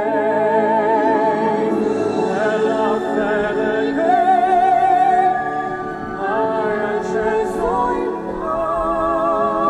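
Slow vocal music: a singer holding long notes with wide vibrato over a steady accompaniment.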